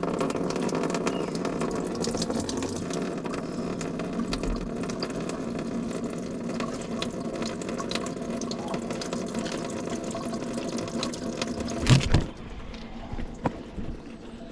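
Engine coolant pouring out of a disconnected coolant hose in a steady splashing stream. About twelve seconds in there is a sharp knock, and the flow falls much quieter after it.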